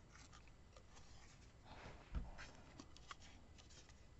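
Faint rustling and small ticks of cut-paper leaves being rolled by hand around a metal flower-shaping tool, with a soft bump about two seconds in.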